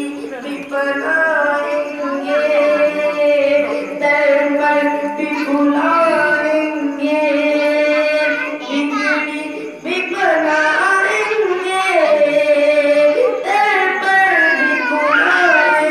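A naat, an Urdu devotional song praising the Prophet, sung in a high voice. It has long held notes and ornamented, gliding runs.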